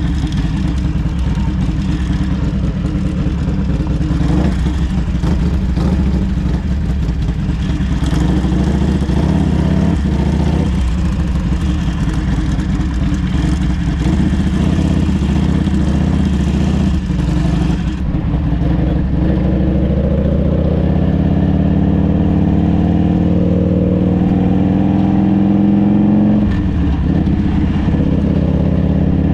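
Harley-Davidson trike's V-twin engine running on the road, with a steady hiss over it that stops about two-thirds of the way through. The engine note then rises steadily for several seconds and drops sharply near the end, like a pull-away and a gear change.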